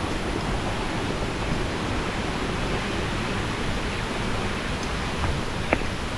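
Steady rushing of flowing water, with one sharp click near the end.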